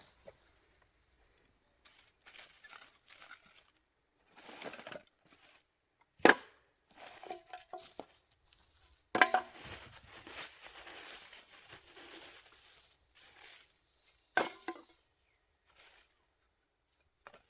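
Thin plastic grocery bag crinkling and rustling as trash is pulled from a fire pit and dropped in, in irregular spells, with three sharp knocks, the loudest sounds, about six, nine and fourteen seconds in.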